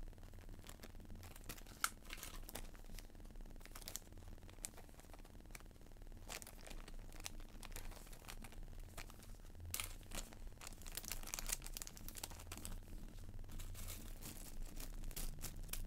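Plastic bags crinkling and rustling as they are handled, with scattered light clicks; busiest about two-thirds of the way through.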